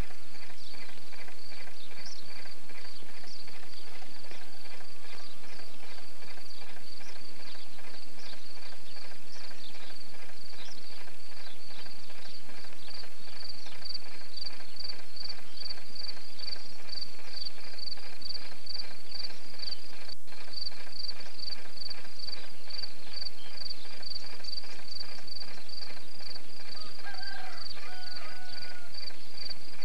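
Crickets chirping steadily in a grassy meadow: a high, rapid pulsing that grows stronger and more regular about halfway through, at roughly two to three chirps a second. Two short whistled notes come near the end.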